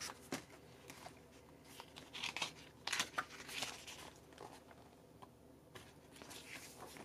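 Pages of an album photobook being turned and handled by hand: a few soft paper swishes and rustles.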